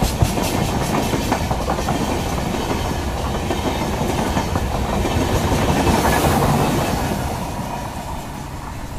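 Passenger train coaches rolling past close by on a rail bridge, wheels clattering over the rail joints. The sound swells about two-thirds of the way through, then fades as the last coach passes near the end.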